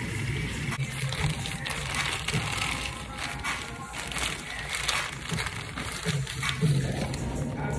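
Plastic zip-top bag crinkling and crackling in irregular bursts as it is handled, over background music.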